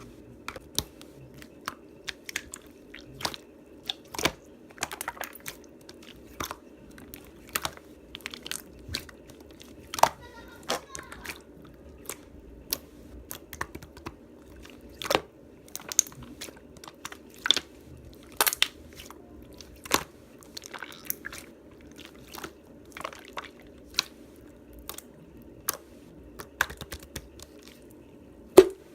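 Clear slime with gummy-bear charms mixed in, being pressed and worked by hand. It gives irregular sharp clicks and crackles, about one or two a second.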